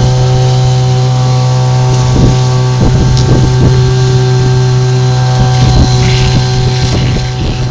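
A loud, steady low mechanical hum with several steady tones above it, with wind buffeting the microphone now and then.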